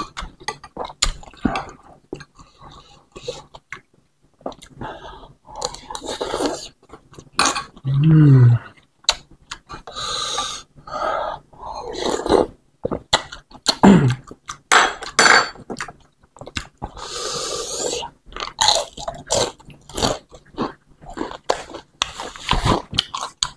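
Close-miked eating of bakso meatball soup with rice vermicelli: a spoon clicking against a ceramic bowl, slurping of broth, and chewing. Two short wordless hums fall in pitch, about 8 and 14 seconds in.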